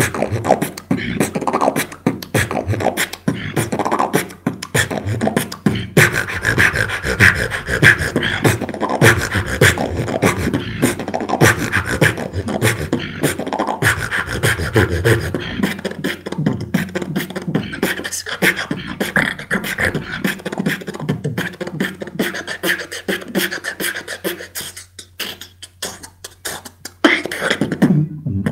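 A beatboxer's solo routine: fast vocal drum patterns of kicks, snares and clicking hi-hats, with a held high tone about six seconds in. It is heard through an online voice-chat connection.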